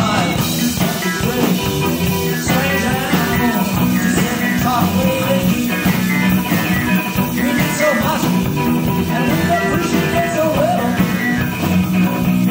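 A rock band recording playing continuously, dense and loud.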